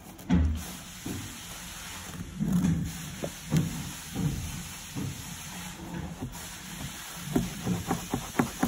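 Rid-A-Gum wire brush scrubbing a gum spot out of carpet: irregular rubbing strokes and dull knocks, with a quick run of short taps near the end.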